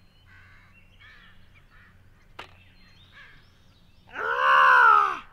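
A man's long, loud groan of dismay over a missed putt near the end, after a single sharp click about two and a half seconds in, with faint bird chirps in the background.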